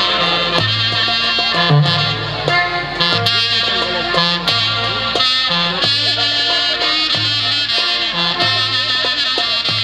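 Instrumental Greek folk dance music, a clarinet-led tune over a bass line that alternates between two notes in a steady repeating rhythm.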